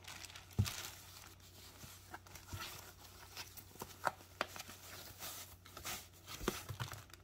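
Clear plastic packaging bag and foam wrapping sheet rustling and crinkling in the hands as a handbag is unwrapped, in faint, scattered crackles and soft taps.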